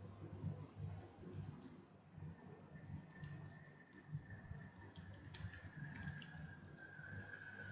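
Computer keyboard typing: a quiet, irregular run of key clicks as short commands are entered. Under it are a faint low hum and a faint high steady whine that comes in a few seconds in.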